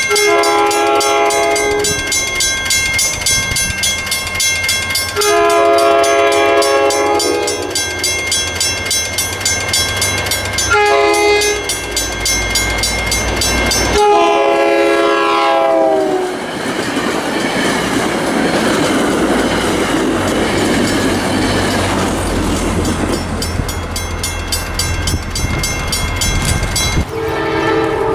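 Passenger train's multi-tone horn sounding the grade-crossing pattern, long, long, short, long, the last blast dropping in pitch as the train passes. The train then rushes by with a steady rumble and wheel noise for about ten seconds, and the horn sounds again near the end.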